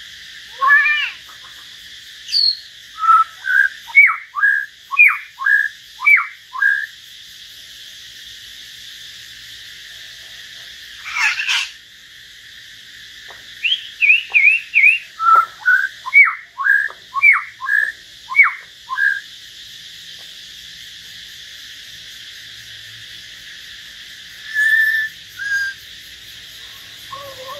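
Caged common hill myna and white-rumped shama singing: two runs of quick, clear, down-slurred whistles, with one louder, harsher note between them and a short phrase near the end.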